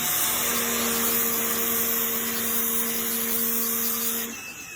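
Black+Decker BXPW1600E electric pressure washer running, its motor humming steadily under the loud hiss of the water jet. It cuts off abruptly about four seconds in.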